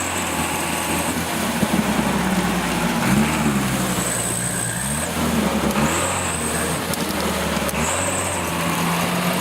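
Car engine revving up and down repeatedly as the vehicle drives off-road, with a thin high whine that comes and goes.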